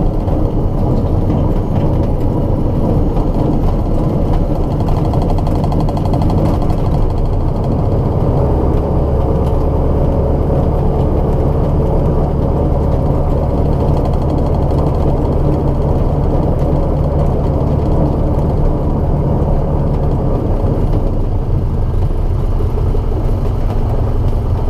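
Light aircraft's piston engine and propeller running at taxi power, heard loud inside the cockpit, with the low drone growing stronger about eight seconds in and easing near the end. Under it runs the metal grinding and vibration of the taxi roll, which the owner suspects comes from low oil/air pressure in the main landing gear oleo struts.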